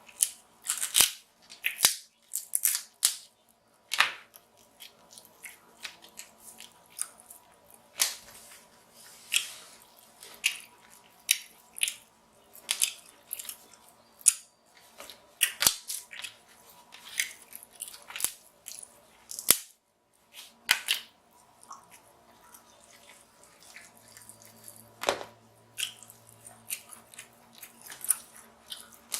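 Close-miked eating of king crab legs: irregular sharp snips and cracks of the shells being cut and broken open, with chewing and lip smacking in between.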